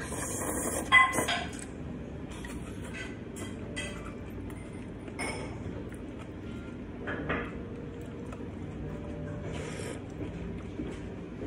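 A person slurping ramen noodles, loudest about a second in, with short slurps again midway and near the end as broth is sipped from a ramen spoon. Light clinks of chopsticks and spoon against the bowl come in between.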